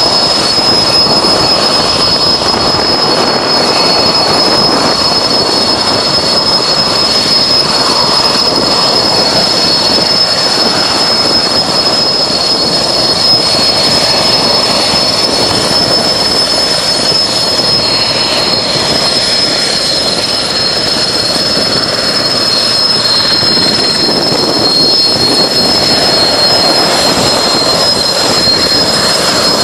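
Erickson S-64 Air-Crane heavy-lift helicopter running close by: a steady, piercing high-pitched turbine whine over the rush of the main rotor.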